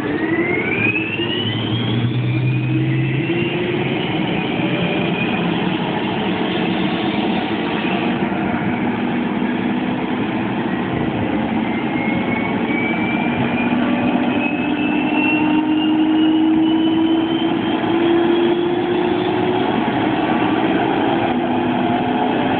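M1 Abrams tank's gas-turbine engine running with a steady whine. The whine climbs in pitch over the first couple of seconds, holds, then climbs slowly again about halfway through.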